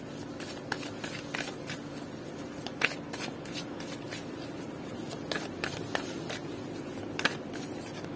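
A deck of oracle cards being shuffled by hand: irregular soft slides and snaps of card against card, one or two a second.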